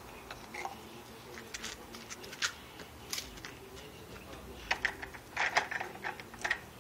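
Dry uncooked rice rustling and pattering as it is scooped and poured with small plastic cups in a plastic bin: scattered light clicks and brief hisses, busiest about five seconds in.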